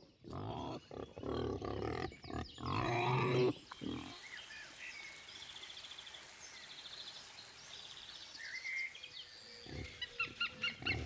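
Wild boar grunting, several loud rough grunts in the first few seconds. Then a quieter woodland background with faint high chirps, and a quick run of short sounds near the end.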